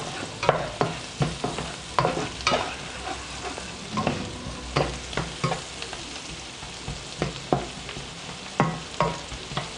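Diced onions and garlic sizzling in oil and butter in a stainless-steel frying pan, stirred with a slotted spatula that scrapes and taps the pan about twice a second in uneven strokes.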